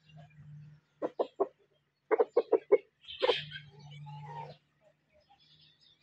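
Aseel rooster clucking: three short clucks about a second in, a quicker run of five clucks a second later, then a longer, louder call that trails off softer.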